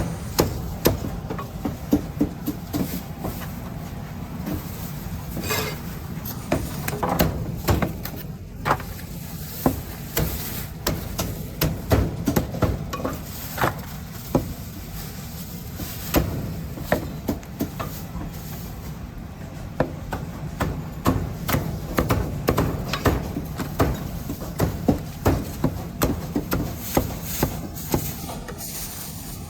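Cleaver chopping roast meat on a wooden chopping board: a long run of sharp, irregular thwacks, about one to three a second, over a low background rumble.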